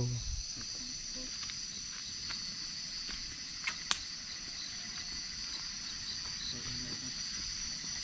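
Night insects trilling in a steady, high-pitched chorus. Two short, sharp clicks come about four seconds in.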